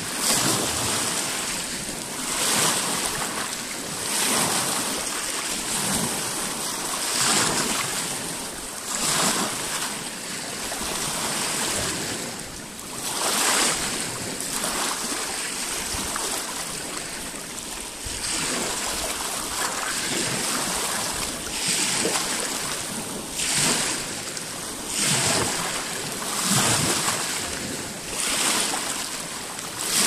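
Small lake waves lapping and breaking over a rocky shore. A splash swells up every one and a half to two seconds over a steady rush of water.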